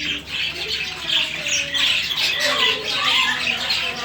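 Caged parrots squawking and chirping, many short calls overlapping.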